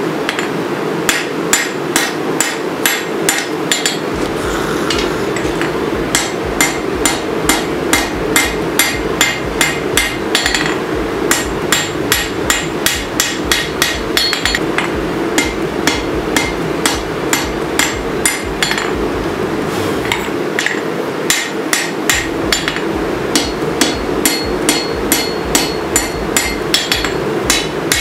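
Hand hammer striking hot 5160 steel on an anvil, forging a sword blade's profile: a long run of sharp, evenly paced blows, about two to three a second, with a few short pauses. A steady rushing noise runs underneath.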